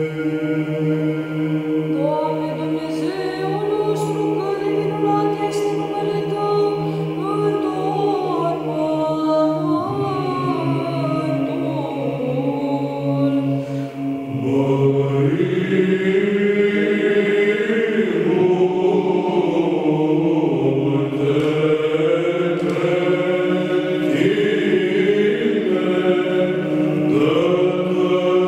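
Male Byzantine psaltic choir chanting Orthodox megalynaria (mărimuri) a cappella, with a low drone (ison) held under a moving melody line. The drone changes pitch about ten seconds in, and the singing grows fuller and louder about halfway through.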